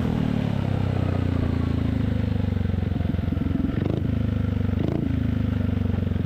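Yamaha XMAX 250's single-cylinder engine idling through a Vilan MV1 stainless slip-on exhaust, a steady low pulsing note that eases down in pitch during the first second and then holds.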